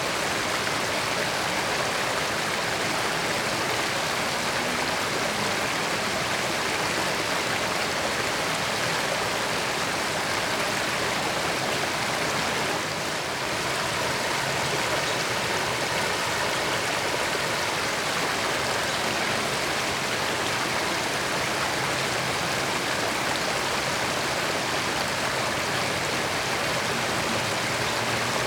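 Creek water flowing steadily over rocks, an even rushing and babbling with a brief slight dip about halfway through.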